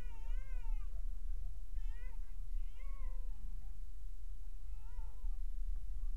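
A high, wavering, cat-like cry repeated four times, each under a second long, over the steady low rumble of a car driving.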